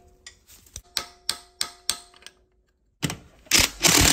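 A hammer striking a flat-bladed screwdriver set in the slot of a rounded-off bolt head: four sharp metallic hits about a third of a second apart, each leaving a ringing tone. Near the end comes a loud burst of about a second from an impact gun driving a socket on the bolt.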